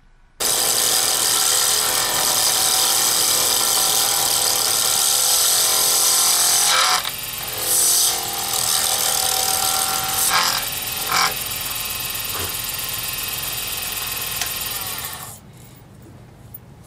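Lathe spinning a resin-cast circuit board pen blank while a turning tool cuts it, peeling off continuous ribbons of plastic shavings: a steady, loud machine whine with cutting noise. It starts after a moment's silence, shifts briefly a few times partway through, and drops much quieter about fifteen seconds in.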